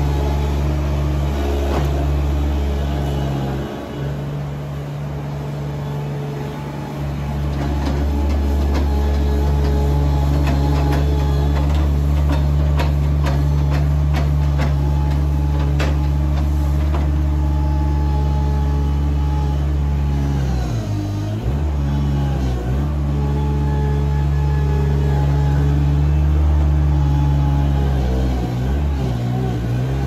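Compact loader's engine running steadily, its pitch dipping and recovering briefly a few times in the second half.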